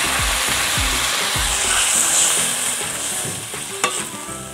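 Water poured into a hot metal kadai of fried potatoes and spice paste, hissing and sizzling. The sizzle dies down after about three seconds, and a metal spatula knocks against the pan twice near the end.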